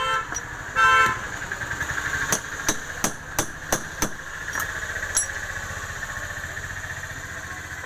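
About six sharp metal hammer taps at roughly three a second, starting about two seconds in, then two fainter taps: a 608 ball bearing being tapped into place on an electric wood planer. A vehicle horn toots loudly about a second in, over a steady background hum.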